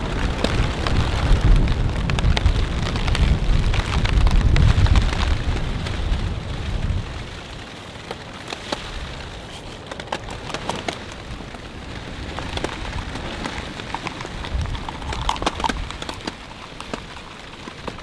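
Rain pattering in strong wind, with gusts loud for the first seven seconds or so, then easing to a lighter patter with scattered sharp taps.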